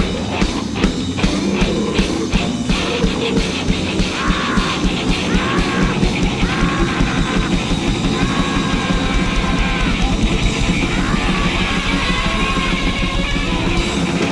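Grindnoise/noisecore music: a dense wall of distorted noise over fast drumming, with short harsh yelled vocal phrases repeating from about four seconds in.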